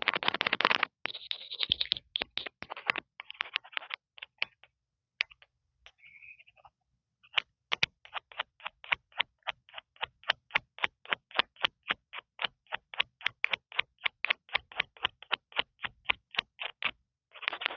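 Fingers tapping and scratching directly on an earphone's built-in microphone. There is dense scratching for the first second, then scattered taps and scratches. From about seven seconds a steady run of quick taps follows, about four a second, stopping shortly before the end.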